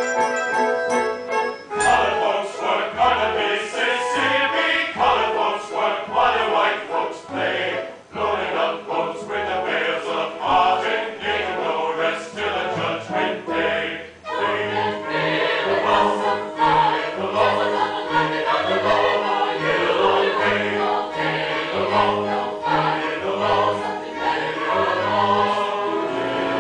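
Stage chorus singing with orchestral accompaniment over a bouncing alternating bass line. A held chord at the start gives way to the song about two seconds in.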